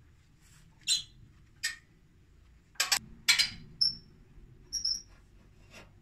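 Metal clanks and knocks as a small trailer wheel is handled and fitted onto the steel frame of a homemade band sawmill: about seven short, sharp knocks, loudest about three seconds in, a couple of them with a brief high ring.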